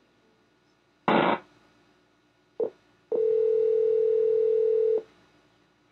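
Telephone ringing tone on the line as the held call is put through to an operator: one steady tone of about two seconds, preceded by a short burst of line noise about a second in and a brief click.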